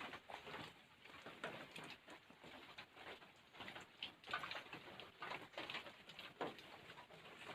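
Faint rain pattering and dripping, with scattered irregular drops tapping.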